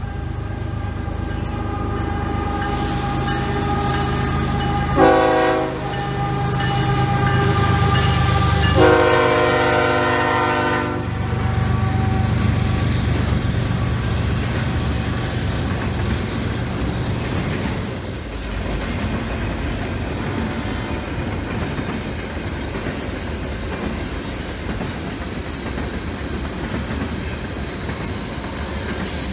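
Train passing: the locomotive horn sounds a short blast about five seconds in and a longer one about nine seconds in, over the steady rumble and clatter of the cars rolling by. A high-pitched wheel squeal sets in near the end.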